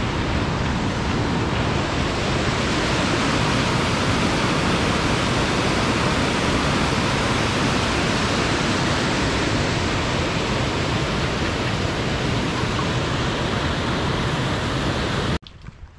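Rushing water of a glacial mountain river pouring through a rocky channel and churning into whitewater: a loud, steady rush that cuts off suddenly near the end.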